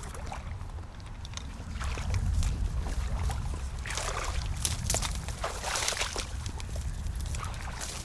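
Water sloshing and splashing in shallow water, in swells of about a second or two that come from about two seconds in and again around the middle, over a steady low rumble of wind on the microphone.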